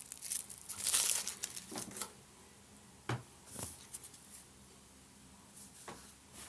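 Packaging crinkling and rustling as it is handled, loudest about a second in, followed by a few light knocks as items are set down or handled.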